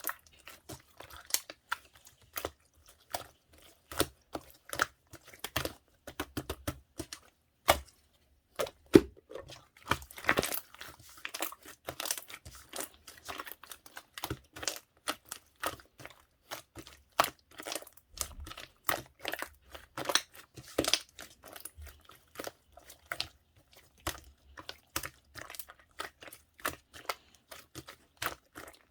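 Slime being squished, folded and stretched by hand, giving a quick, irregular run of crackly pops and clicks.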